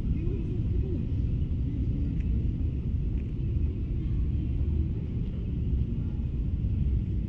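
Steady low rumble of shopping-mall background noise, picked up by a camera carried at walking pace.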